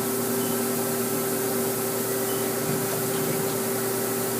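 Powered-up Haas SL-20T CNC lathe humming steadily at rest, a constant mid-pitched tone over a lower one and an even hiss.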